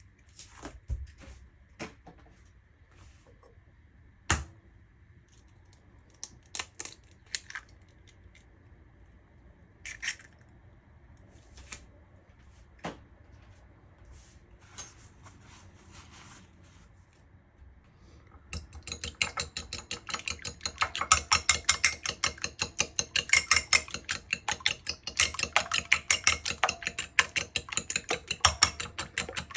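A few scattered knocks and clicks of kitchenware, then about eighteen seconds in a utensil starts beating eggs in a bowl: a fast, steady clatter against the bowl that keeps going.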